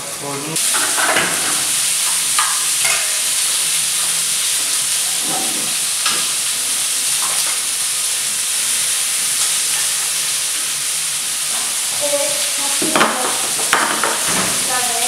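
Food frying in a hot pan: a steady, loud sizzle that sets in about half a second in, with scattered clinks and scrapes of utensils against pans and plates.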